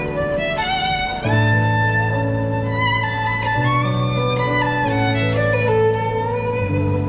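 Violin music: a violin plays a melody with slides between notes over low, held bass notes that change every second or two.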